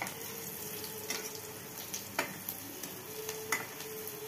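Potato patties (aloo tikki) shallow-frying in hot oil, sizzling steadily. A few sharp clicks come about a second apart as a spatula knocks against the pan while the patties are turned.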